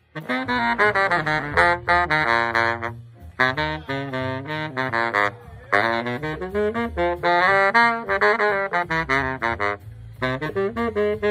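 Baritone saxophone playing fast runs of notes in short phrases, pausing briefly between phrases about three times.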